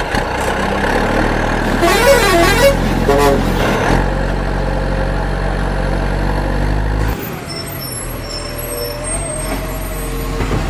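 A vehicle engine runs with a steady low hum, and a fast warbling, siren-like tone sounds about two seconds in. The hum cuts off suddenly about seven seconds in, leaving fainter wavering tones.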